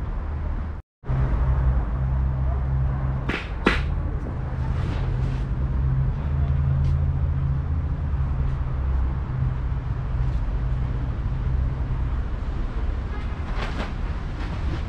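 Steady low mechanical hum and rumble, with two sharp clicks about three and a half seconds in. The sound drops out completely for an instant just under a second in.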